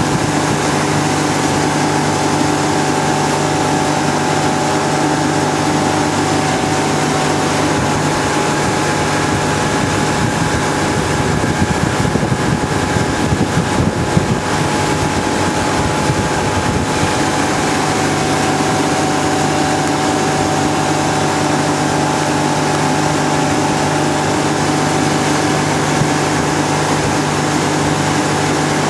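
Towing motorboat's engine running steadily at speed, a constant hum, with wind noise on the microphone. Gusts buffet the microphone harder for a few seconds around the middle.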